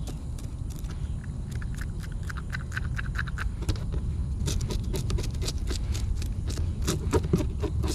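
Knife blade scraping scales off a bluegill: quick, rasping scrapes against the fish, coming thick and fast in the second half, over a steady low rumble.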